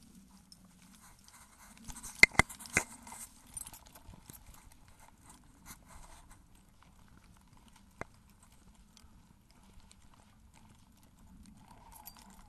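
Footsteps on a hard lane surface, with three sharp knocks close together about two seconds in and a single knock later.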